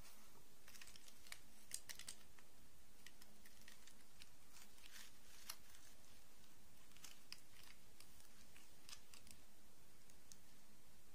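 Scattered light clicks and taps of plastic dolls and doll parts being handled and set against each other, coming in small clusters.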